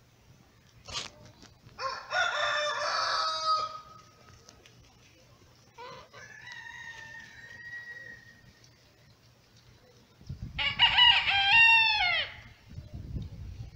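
Roosters crowing: one crow about two seconds in, a fainter, longer call in the middle, and the loudest crow near the end, with a low rumble beneath it.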